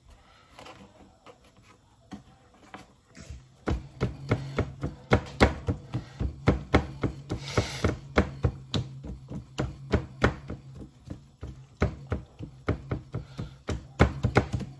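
Rolling pin rolling out a stuffed cauliflower-and-potato paratha, a quick run of knocks and taps about three or four times a second that begins a few seconds in.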